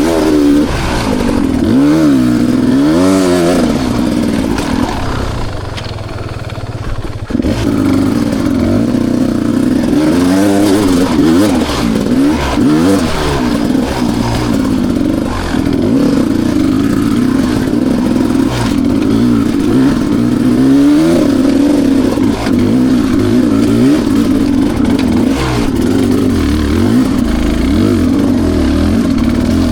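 2020 Beta 300 RR's single-cylinder two-stroke engine being ridden, revving up and falling back again and again as the throttle is worked. About five seconds in it drops to a quieter, lower stretch for a couple of seconds, then picks up again and holds higher revs with shorter swings.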